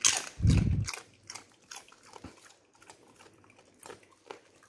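Alaskan Malamute crunching and chewing a snack, with a dull thump and loud crunches in the first second, then fainter, irregular crunches.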